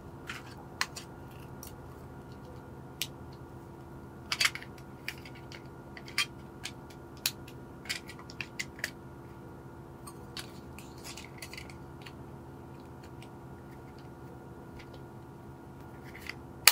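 Irregular sharp plastic clicks and taps as AA batteries are fitted into the plastic battery box of a set of LED string lights and the box is handled, the loudest about four seconds in, over a steady low hum.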